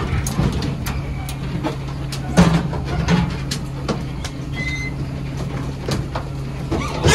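A truck engine idling with a steady low hum, with irregular metallic knocks and clanks from the livestock truck's body as the gilts are handled.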